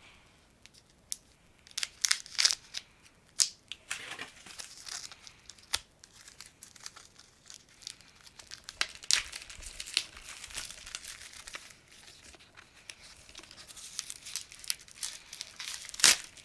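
Plastic wrap crinkling and tearing as it is handled and pulled off a wrapped hardcover book, in irregular crackles and sharp snaps.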